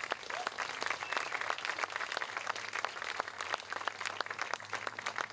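Audience applauding, a dense run of hand claps from a large crowd.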